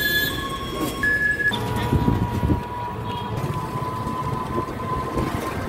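Electric auto-rickshaw: alternating two-tone electronic beeping for the first second or so, then the rumble and rattle of the moving rickshaw on the road, with a thin steady tone running over it.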